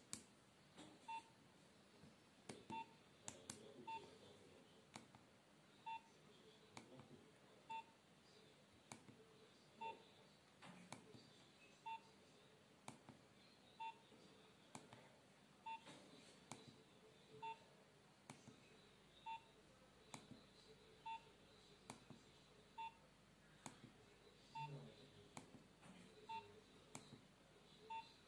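Nokia 2760 keypad tones: a faint short beep with a key click about every two seconds as the navigation key is pressed to step through images.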